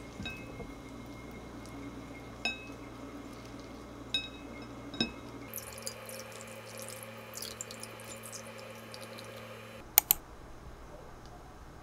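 Wooden chopsticks clicking lightly against a ceramic bowl a few times as pork is piled onto noodles, then soup sauce poured from a small glass jug onto the noodles in a trickling splash lasting about four seconds. Two sharp knocks come about ten seconds in.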